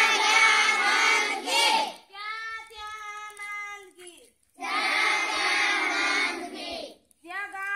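A group of children chanting in unison in call-and-response: one voice calls a line, the group answers together, twice over.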